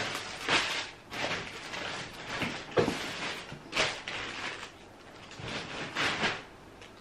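Rustling and shuffling as things are handled and moved about, a series of short swishes.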